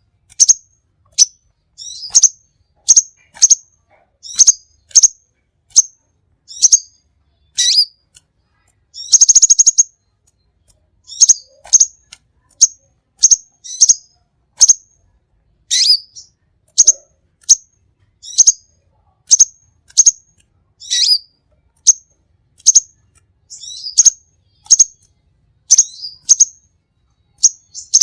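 A songbird calling in short, sharp, high chirps, about one or two a second, some sweeping downward, with one buzzy trill about nine seconds in.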